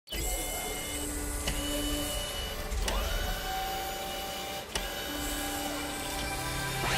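Mechanical sound effects for an animated gear-and-lever logo: small motors whirring in held tones that shift pitch, with a sharp clank about one and a half, three and nearly five seconds in.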